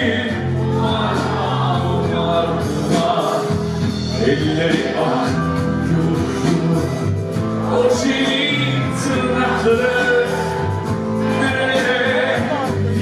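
Live Anatolian rock band playing: electric guitars, bass and drums with a male voice singing over them.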